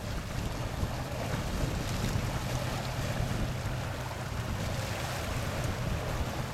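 Steady wind and water noise heard from a boat at sea, with a faint steady low hum underneath.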